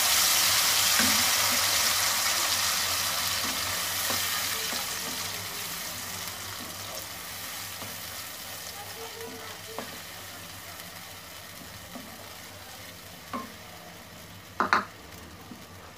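Onion, garlic and coconut paste sizzling in hot oil just after going into the pan, loud at first and fading steadily as it fries, while a wooden spatula stirs it. A few short clicks of the spatula against the pan come in the second half, the loudest near the end.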